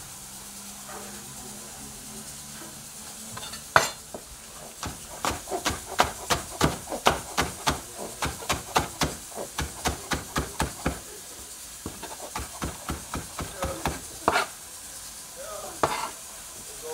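Kitchen knife chopping scallions on a plastic cutting board: quick, sharp taps about three a second, starting about four seconds in and broken by a couple of short pauses.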